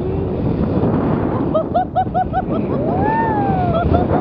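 Wind buffeting the camera's microphone in paraglider flight, loud and steady. Over it a woman's voice gives a quick run of short excited cries midway, then one long rising-and-falling whoop.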